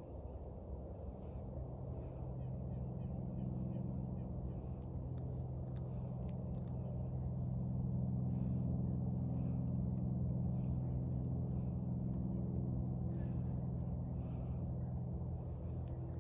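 A steady low engine hum, growing louder over the first several seconds and then holding, with a few faint bird chirps above it.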